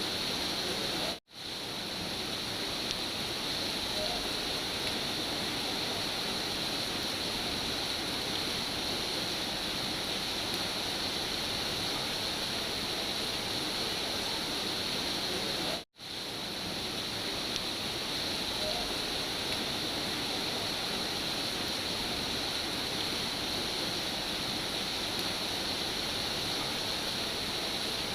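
Steady rain noise from a looped recording, with no thunder. It cuts out to silence for an instant twice, about a second in and about halfway through, and fades back up each time: the seams of the loop.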